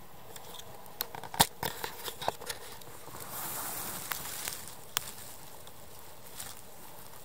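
Crackling and rustling of moss and dry twigs as a hand pushes in around the base of a mushroom's stem. There are several sharp snaps and clicks about a second in, a soft rustle around three to four seconds, and one more click near five seconds.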